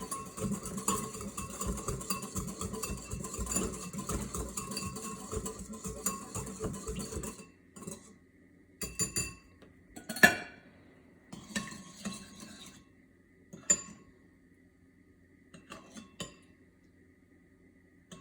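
A utensil stirring a thick lemon glaze in a mixing bowl, scraping and clinking against the bowl in quick succession. About seven seconds in the stirring stops. Several separate clinks follow, the loudest a few seconds later.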